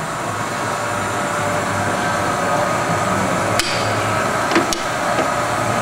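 Jones & Shipman tool and cutter grinder's wheelhead spindle, driven by its 3/4 HP three-phase motor, running with a steady hum. A few sharp metallic clicks come about three and a half and four and a half seconds in as the slides are worked by hand.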